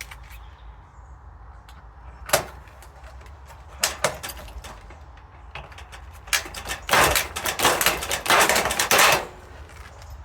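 Aluminium pop rivets being set in steel raised-bed panels with a hand rivet gun: a sharp snap about two seconds in and another near four seconds, then about three seconds of dense metallic clicking and clattering.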